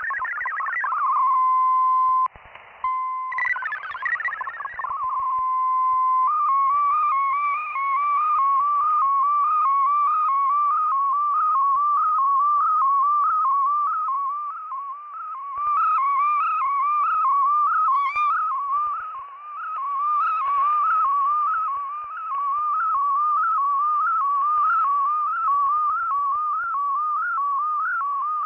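Digital-mode data signal from a shortwave text broadcast received on a software-defined radio: a steady single tone, briefly broken, then from about six seconds a fast warbling tone that hops up and down in an even, repeating pattern.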